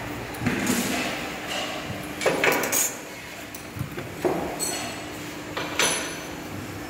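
Short lengths of copper tubing and hand tools clinking and knocking against a metal workbench as they are picked up and laid out, several separate knocks a second or two apart, over a steady low hum.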